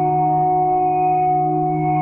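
Ambient meditation music made of several sustained, overlapping steady tones, held without a beat.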